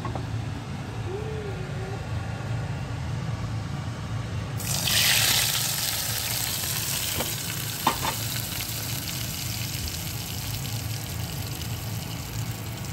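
Hot desi ghee tadka with cumin seeds and dried red chillies poured onto a pot of kadhi: a sudden loud sizzle about four and a half seconds in, settling into a steady sizzle. Two light clinks follow a few seconds later, over a low steady hum.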